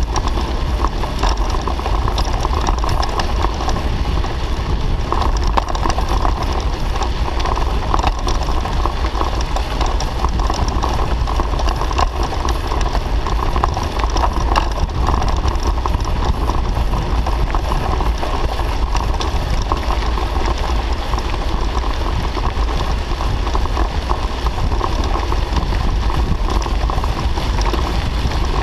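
Mountain bike rolling steadily on a gravel road: knobby tyres crunching over loose stones and the bike rattling, under steady wind rumble on the bike-mounted microphone.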